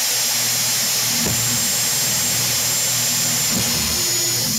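Hand-held electric drill running steadily at speed, its bit boring through a PVC pipe, with a constant high motor whine over the grinding noise.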